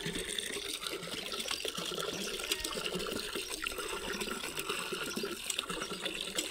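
Water running in a steady splashing flow.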